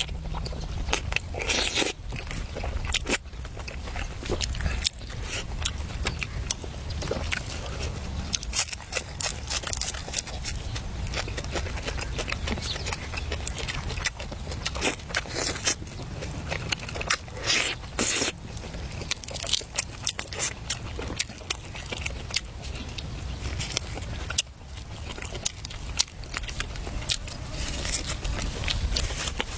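Close-up eating: food being bitten and chewed, with many short crunching and crackling clicks over a steady low rumble.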